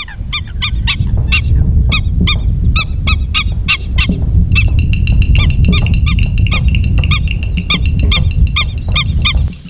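Black-winged stilts calling: rapid, repeated short nasal yelping notes, several a second, with more birds overlapping from about halfway, over a steady low rumble.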